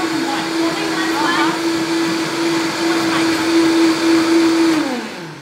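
A countertop blender runs steadily, puréeing red chile sauce, with a steady motor whine. Near the end the motor is switched off and the whine falls in pitch as the blades spin down.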